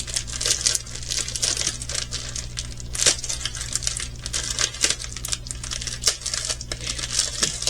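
Plastic packaging crinkling and crackling as it is handled and pulled apart, with a few louder snaps about three and six seconds in; the plastic is sticky.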